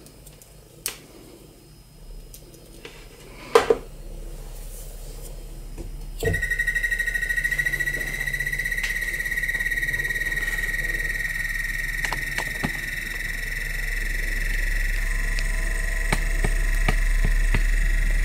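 Bedini SSG self-oscillating motor starting up. First come clicks of alligator clips being handled, one loud clack a few seconds in. About six seconds in, a steady high-pitched whine starts suddenly as the coil circuit begins pulsing, and a low hum from the spinning wheel grows louder toward the end, with light ticks.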